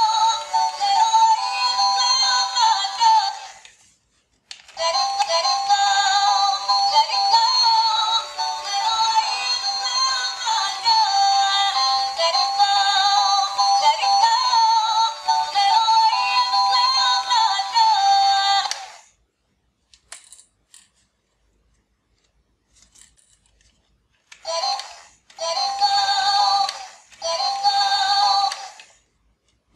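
Battery-powered light-up bubble gun toy playing its thin-sounding electronic melody through a small speaker while the trigger is held. The tune breaks off briefly near the start, stops for several seconds past the middle with a few faint clicks, then plays again in three short bursts near the end.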